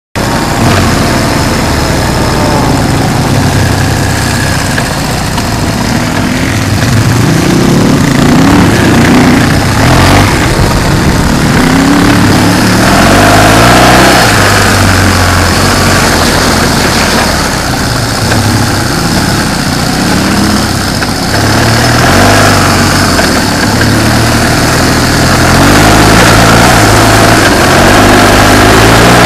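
Motorcycle engine running under way, heard from on board the bike. Its pitch rises and falls repeatedly with throttle and gear changes.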